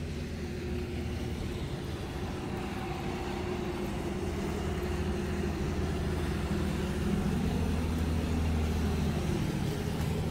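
Small fishing boat's engine running as it passes by: a steady low drone that grows louder toward the last few seconds.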